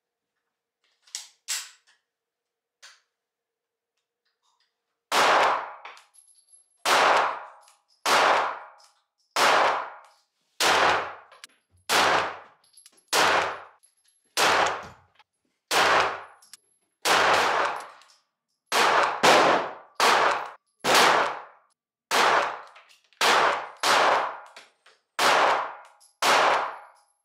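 A few light metallic clicks of the Canik TP9 SA pistol being loaded, then about twenty single shots from it in 9mm Luger. The shots come roughly a second or so apart, a few in quicker pairs, and each rings off over about a second.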